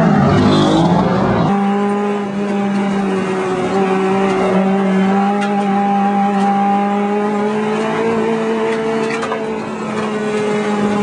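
2002 Acura RSX Type-S's 2.0-litre four-cylinder engine heard from inside the race car's cockpit. After a rough, noisier first second and a half it holds nearly steady revs, then dips slightly in pitch near the end.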